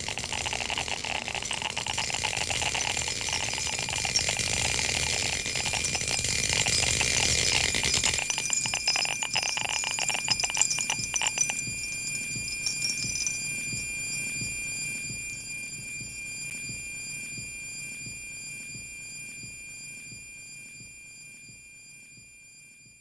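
Closing soundtrack: a dense, shimmering wash with bell-like ringing tones. It thins out suddenly about eight seconds in and again near twelve seconds, leaving high ringing tones that slowly fade away.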